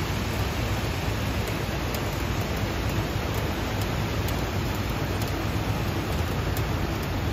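Steady hiss of heavy rain falling over a flooded, fast-running city stream, with scattered faint ticks of drops.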